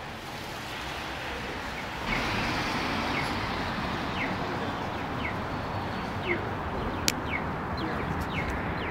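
City street ambience: a steady rush of traffic noise that grows louder about two seconds in. Over it, a bird gives short, high, falling chirps, repeated every second or so from about four seconds in, and there is a single sharp click near the end.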